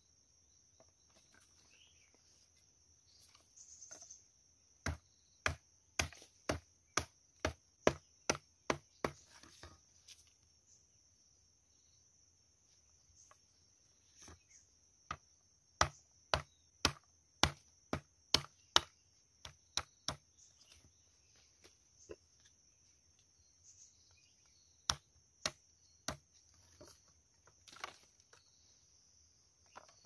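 A knife chopping a thin green stick against a wooden log: sharp strikes about two a second in two runs of about ten, with three more later on.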